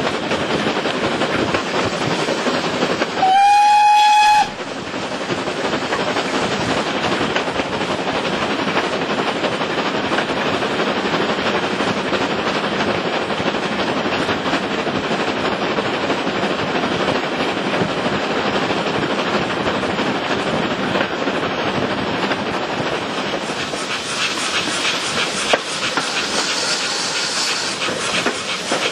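GWR small prairie tank engine 4566 hauling its coaches, heard from a coach near the front: the steady running noise of the train on the rails. About three seconds in, the locomotive's steam whistle sounds once, a single steady note lasting just over a second.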